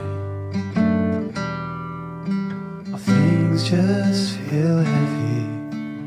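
Background music: an acoustic guitar strumming and picking chords in a slow song, with a wavering melody line a little past halfway.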